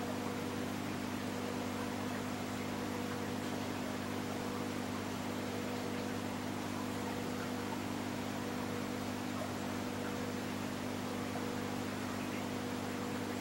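Steady mechanical hum over a constant hiss, a low drone made of a few fixed tones, with a fainter higher tone that comes and goes.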